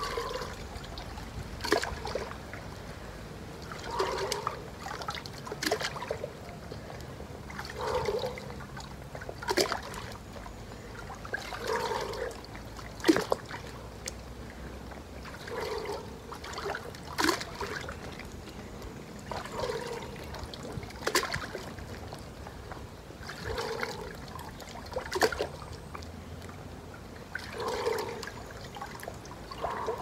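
Water sloshing and splashing in an inflatable pool as a person works out in it, a swell of sloshing with sharp slaps of water about every two seconds.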